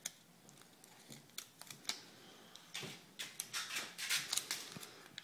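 Hands handling a vinyl decal, its paper backing and clear transfer film: faint rustles, crinkles and small clicks at irregular moments, busiest in the second half.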